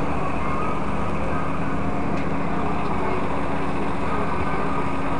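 A steady engine hum, like a vehicle idling, with faint distant voices behind it.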